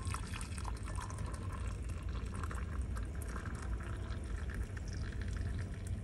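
Water pouring from a stainless steel kettle into a ceramic mug: a steady trickling stream filling the cup, over a low steady hum.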